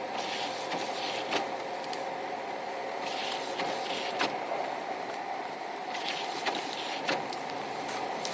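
Steady engine and road noise heard inside a moving car's cabin, with a faint knock about every three seconds.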